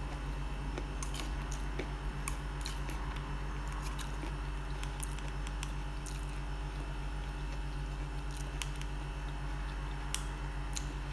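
Mouth sounds of chewing corn kernels, with scattered small clicks of a plastic spoon picking kernels out of a tin can, over a steady low hum.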